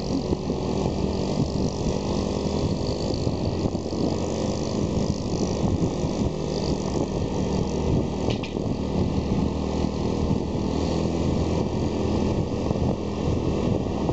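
Motorcycle engine running steadily at cruising speed, heard from on board, with road noise.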